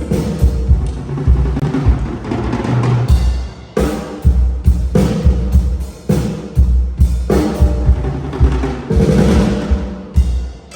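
Percussion-heavy dance music with a hard, regular bass drum, played loud through a PA sound system under test.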